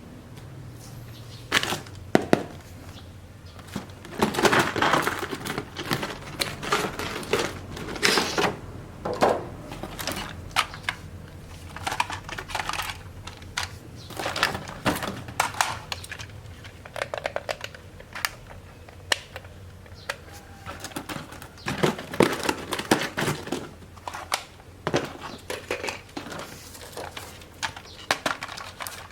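Hand-work with small materials: irregular clicks, taps, scraping and crinkling rustles, some in quick runs.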